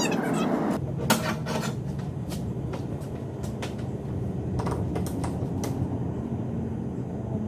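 Scattered sharp clicks and light knocks, about seven in all, over a steady low hum: tools and parts being handled while the work goes on.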